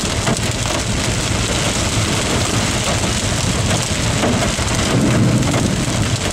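Rain and wind hitting a moving vehicle, with steady road rumble underneath.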